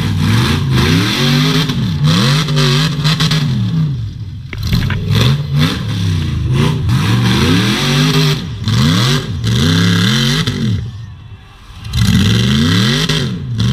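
Rock bouncer buggy engine revved hard over and over, its pitch jumping up and falling back about once a second under load as the buggy claws through mud and up a steep dirt bank. The revving drops off briefly near the end, then picks up again.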